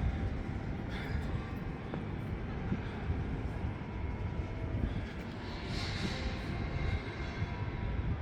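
Steady city rumble of traffic from the streets below the rooftop, with wind buffeting the microphone.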